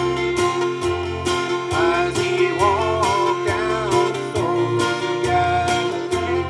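Live gospel song: a man singing while strumming an acoustic-electric guitar.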